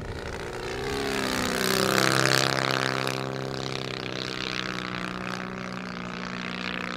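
Large-scale RC model plane's Valach 210 twin-cylinder four-stroke engine and propeller running at flying power as it passes close by. The drone swells to its loudest about two seconds in, drops a little in pitch as the plane goes past, then carries on steadily as it climbs away.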